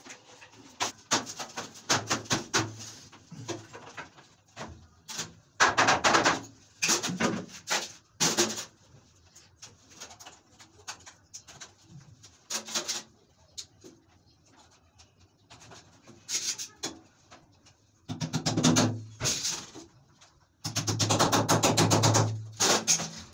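A hand tool working against a bathroom wall by the PVC panels: bursts of rapid strokes, several short runs and a long one near the end.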